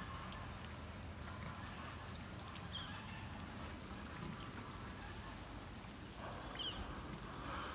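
Light rain pattering steadily on the pen, with a sow's occasional soft grunts and snuffling close by.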